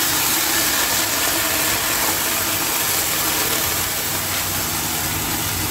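Vinegar sizzling in a hot stainless steel saucepan as ketchup is poured into it: a steady hiss.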